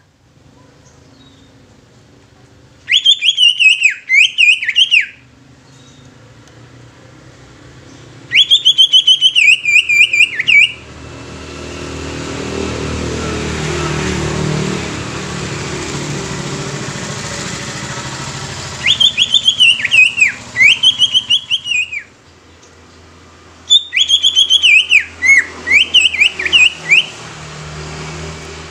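Green leafbird (cucak ijo) singing loud whistled song in four bouts of two to three seconds each, every bout a quick run of repeated downward-slurring notes. Between the second and third bouts a passing motor vehicle's noise swells and fades.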